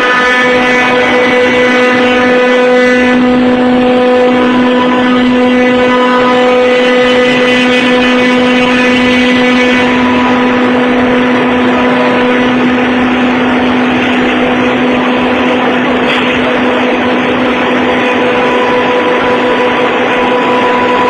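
Rover CNC router's spindle running at speed, a loud steady whine over machining noise; the higher overtones thin out about halfway through.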